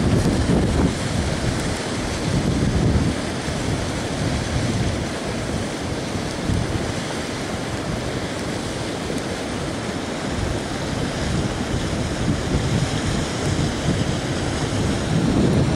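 Silt-laden flash-flood torrent rushing past in a steady noise, with gusts of wind on the microphone swelling the low end near the start, about three seconds in, and near the end.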